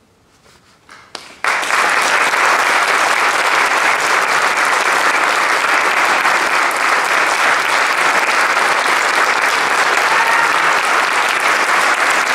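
Audience applause: a few scattered claps, then about a second and a half in, full applause breaks out all at once and carries on steadily.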